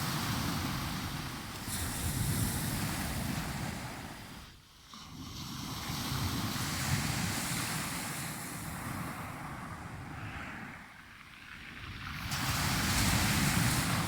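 Black Sea surf: waves breaking and washing in, swelling and falling back in surges, loudest about two seconds in and again near the end. Wind rumbles on the microphone underneath.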